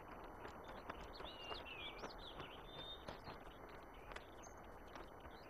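Small birds chirping and twittering over a steady low outdoor hiss, with scattered faint ticks and taps.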